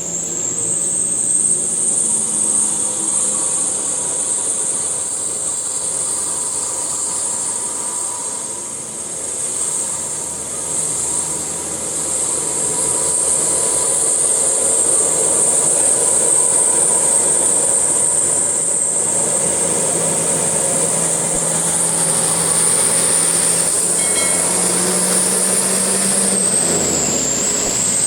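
Large bus running on the road: a steady rumble of engine and tyres with a steady high-pitched whine over it. The engine note climbs slowly, then drops away about 26 seconds in.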